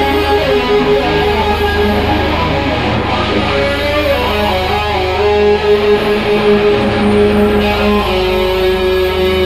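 Live rock band playing an instrumental passage: electric guitar with long held notes over bass guitar and drums.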